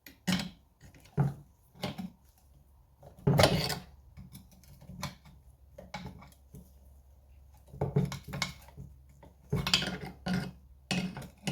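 Irregular knocks, taps and clatter of hand tools on metal engine parts, with a louder rattle about three seconds in, as a stuck part of a small two-stroke engine is persuaded off.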